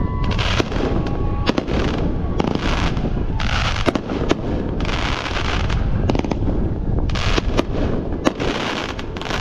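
Aerial fireworks display: a quick succession of sharp bangs from bursting shells, with stretches of hiss between them lasting up to about a second.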